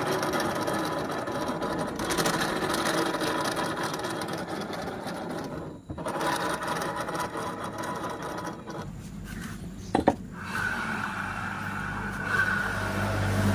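Honda Vario scooter's CVT and rear wheel spinning with a rough, grinding growl (ngorok), the sign of a worn rear pulley bearing. It dips briefly partway through, and after a sharp click it runs steadier with a hum.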